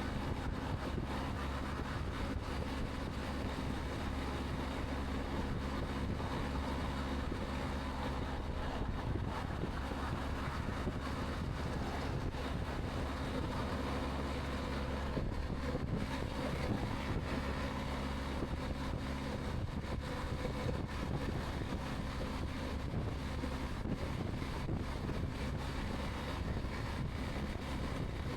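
Steady wind rush over a Sedici Sistema II modular helmet at about 65 mph, heard from a microphone at the rider's ear inside the helmet. Underneath it is the steady drone of a BMW R 1250 GS boxer-twin engine at highway cruise.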